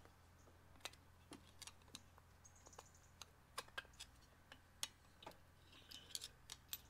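Faint, scattered light clicks and taps of a screwdriver tip against a Citroën 2CV's aluminium cylinder head, prising out the valve spring's bottom seat.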